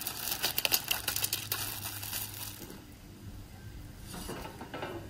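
A bag of ice being emptied into a pot of hot crawfish-boil water: a quick run of crackling and crinkling clicks for the first couple of seconds, thinning out to a few quieter ones.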